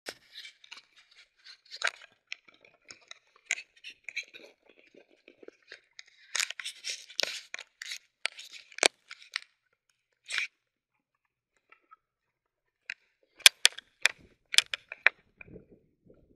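Close handling noise from a paragliding harness: irregular rustling and scraping of straps and gear, with sharp clicks of buckles. A cluster of louder clicks comes about two thirds of the way through.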